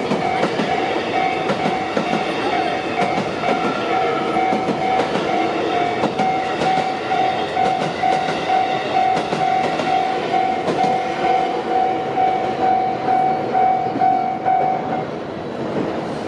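Japanese level-crossing warning bell ringing, an electronic ding repeating about twice a second, while a train runs past; the bell stops near the end.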